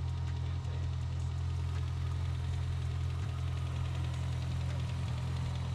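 Turbocharged Dodge 2.2-litre four-cylinder with a fully forged bottom end idling steadily through a three-inch exhaust, a deep even rumble.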